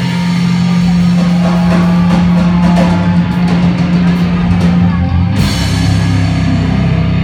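Live rock band playing loud: electric guitars and bass holding low notes over a pounding drum kit, with a cymbal crash about five seconds in.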